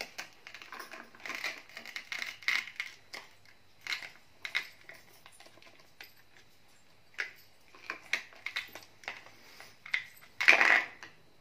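A plastic toy knife sawing at and tapping plastic toy fruit pieces on a play board, making scattered clicks and scrapes, with one longer, louder scrape near the end.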